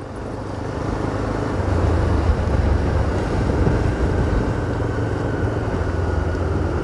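Engine and road noise of a moving vehicle: a steady low rumble that grows louder over the first two seconds and then holds.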